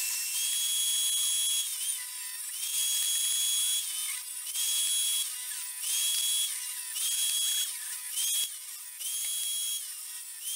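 Table saw cutting small wood offcuts: a high blade whine comes in short stretches of a second or so, one after another, each dipping in pitch as it ends.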